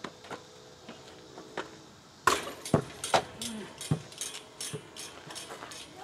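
A basketball hits the portable hoop with a sudden loud bang a little over two seconds in, then bounces several times on the asphalt driveway after a made shot.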